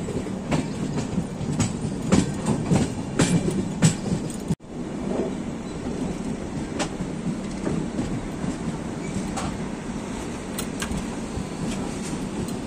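Passenger train running, heard from an open coach doorway: a steady rumble and rush with irregular clicks and clacks of the wheels on the rails, busier in the first few seconds. A brief break in the sound about four and a half seconds in.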